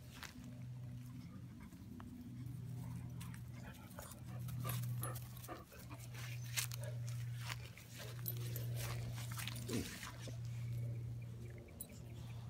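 Dogs being petted close to the microphone, with a short falling whine near the end. Under it runs a steady low hum, broken into stretches, and scattered clicks from handling.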